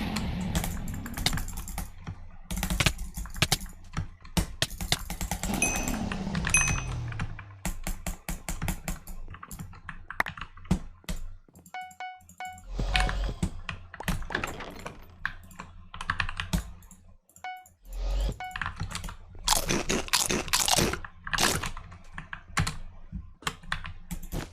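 Fast, irregular keystrokes on a freshly lubed mechanical keyboard with greased stabilizers and added foam, pressed in quick bursts during a game, mixed with the game's sound effects.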